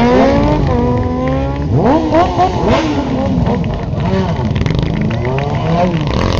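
Several motorcycle engines revving at once, their pitch climbing and falling with repeated blips of the throttle, with a sharp rev about two seconds in.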